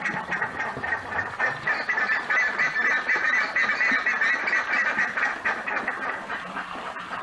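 Buff-necked ibis (curicaca) calling: a loud, fast, unbroken run of repeated calls.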